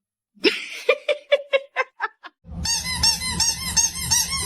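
Squeaking: a quick series of short squeaks, about five a second, then from about two and a half seconds a denser, continuous squeaking over a low rumble.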